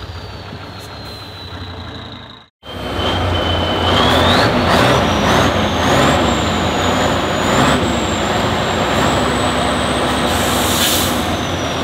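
After a quieter stretch and a short cut-out about two and a half seconds in, a heavy off-road truck's engine runs loud and steady, with a high whine that climbs in pitch.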